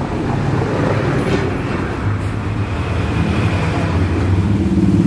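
An engine running steadily with a low, pulsing hum, growing louder and higher near the end.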